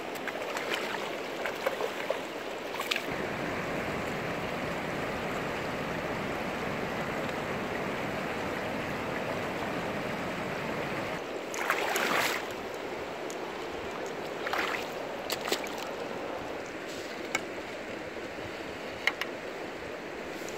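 Shallow river rushing over rocks, a steady wash of running water. A brief louder burst comes about halfway through, and a few short sharp clicks follow later.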